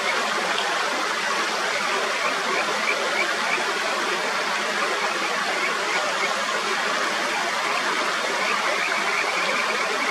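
Mountain stream rushing steadily over rocks, with runs of short, rising high notes, several a second, that come and go: the calls of kajika frogs (Buergeria buergeri).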